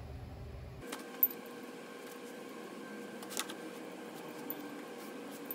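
A few sharp metallic clicks of small engine hardware (bolts and washers) being handled and set down, the loudest about a second in, over a steady faint shop hum.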